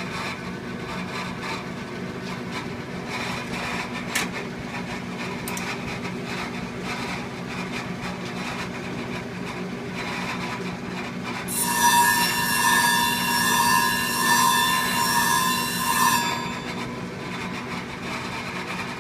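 Clipper-blade sharpening grinder running with a steady hum. About two-thirds of the way in, a clipper blade is pressed onto the grit-charged surface for about four and a half seconds, grinding loudly with a scraping ring.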